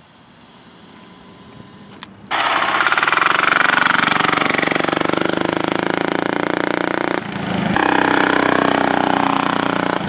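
Small diesel engine of a homemade off-road kart running hard at high revs. It comes in suddenly loud about two seconds in after a faint start, drops briefly about seven seconds in, then picks back up.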